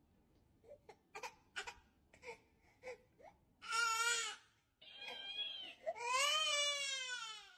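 Infant crying: short faint whimpers at first, then a loud cry about four seconds in and a longer wail that falls in pitch near the end.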